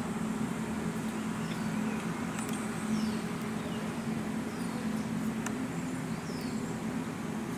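Steady outdoor background hum, with several short bird chirps that fall in pitch and a few faint clicks.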